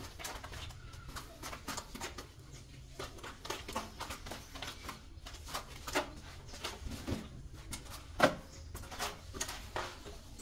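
Irregular short knocks and clicks, with one louder knock about eight seconds in.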